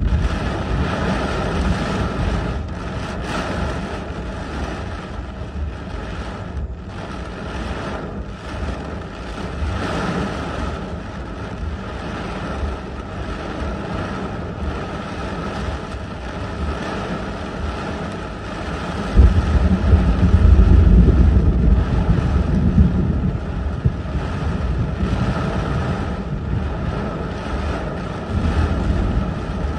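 Heavy rain and strong gusty wind beating on a car, heard from inside the cabin as a steady rushing roar. A harder gust about two-thirds of the way through brings a louder low buffeting for a few seconds.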